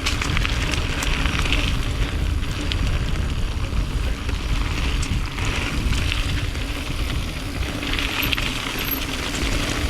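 A mountain bike being ridden on a dirt jump trail: tyres rolling and crackling over the dirt with scattered small clicks, under a steady low rumble of wind buffeting the microphone.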